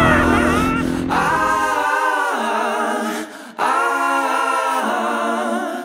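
Background music of held, sung vocal chords in a capella style: two long sustained phrases, fading out at the end. A low rumble under the start dies away about two seconds in.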